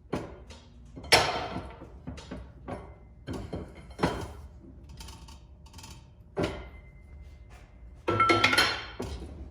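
Metal clanks and knocks as the ball of a CV joint is pressed back into place on a hand-operated arbor press: about half a dozen separate knocks, the loudest about a second in, and a ringing metallic clatter near the end.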